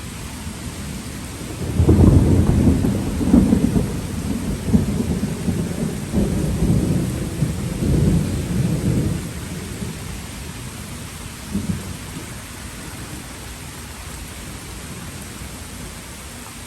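Steady rain falling, with a long low rumble of thunder that swells about two seconds in and dies away by about nine seconds, then a brief fainter rumble near twelve seconds.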